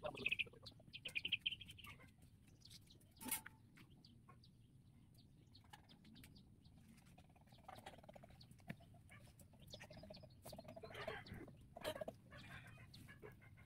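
Faint bird chirps in the first two seconds, then soft, scattered clucks from Rhode Island Red chickens in the second half, with one sharp knock a little after three seconds.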